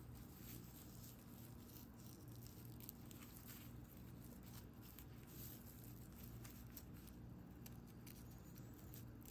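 Faint rustling and scratching of raffia yarn being drawn by hand through crocheted raffia stitches while whipstitching a bag seam, with small irregular crackles over a faint steady hum.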